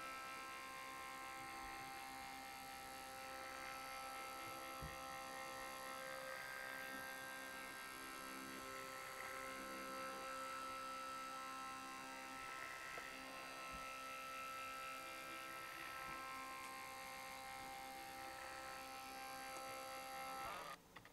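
Creality Ender 3 3D printer running: a faint electric whine of the stepper motors and fans, made of several steady tones that come and go as the print head moves.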